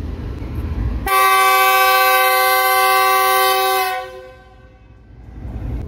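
Locomotive air horn sounding one long blast of about three seconds, several tones at once, starting about a second in and fading out: the second departure signal before the train pulls out. A low rumble sits under it before the blast and comes back near the end.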